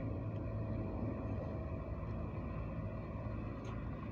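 Steady low outdoor rumble with a faint hum underneath, and a light tick near the end.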